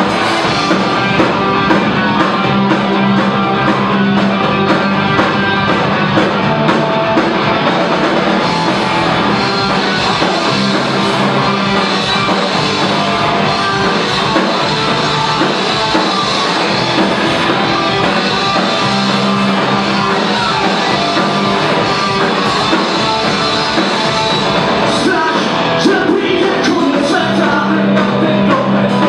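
Live rock band playing loud: electric guitars, bass and drums, with a male vocalist singing into the microphone.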